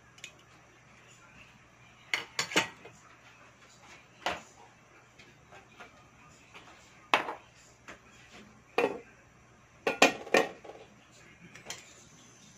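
Occasional clinks and knocks of kitchen utensils and cookware: a quick cluster of three about two seconds in, single knocks spread through the middle, and a loud pair about ten seconds in.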